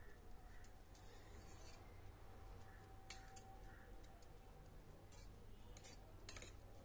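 Faint scraping of a metal spoon against the pan of a pressure cooker while a dry mix of grated coconut and chana dal is stirred, a handful of short scrapes spread through.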